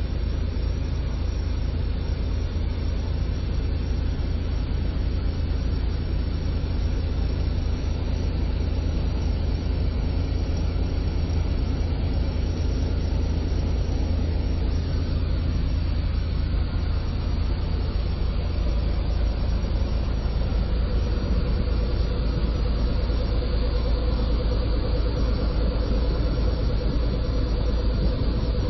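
Cessna 182T Skylane's six-cylinder Lycoming piston engine and propeller droning steadily in cruise flight, heard from inside the cabin with a rush of airflow.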